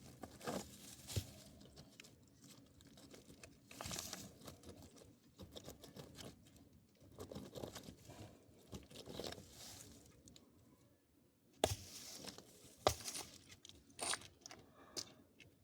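Faint, irregular crunching and scraping of broken concrete and grit, with a few sharp knocks near the end; the jackhammer is not running.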